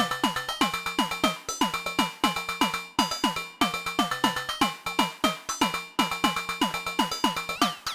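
Slim MPS eurorack analogue percussion synths, a version of Thomas Henry's Mega Percussive Synth, playing a fast looping drum pattern: short pitched analogue drum hits, each falling quickly in pitch like synth toms. Near the end, higher pings that glide downward join the pattern.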